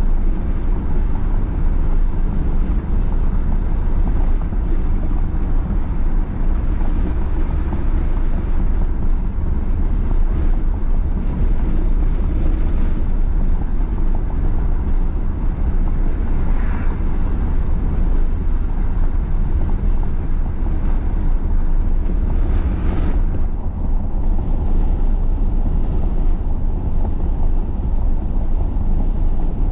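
Steady low rumble of a vehicle on the move: road and wind noise, with a faint short higher sound about halfway through and a brief hiss a few seconds later.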